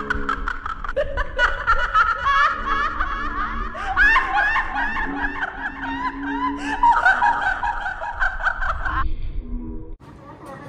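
High-pitched laughter in a long run of rapid giggling pulses that stops about nine seconds in.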